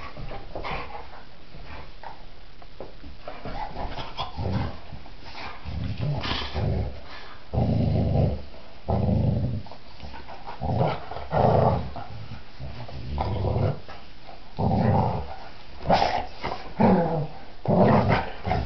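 Two dogs, a dark German Shorthaired Pointer and a pale retriever, play-fighting and growling in short, rough bouts that begin a few seconds in and grow more frequent and louder toward the end.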